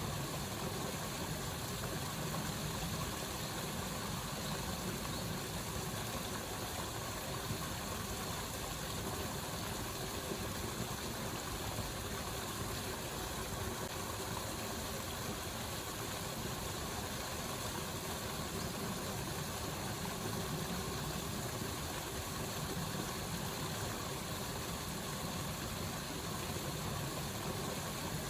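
Rushing water, a steady even noise with no breaks or changes.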